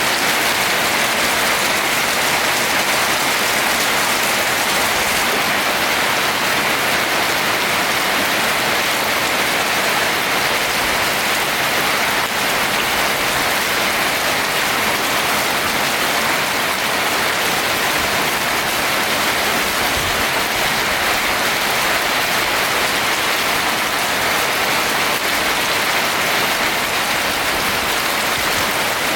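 Steady rain falling on a roof, an even, unbroken hiss of drops.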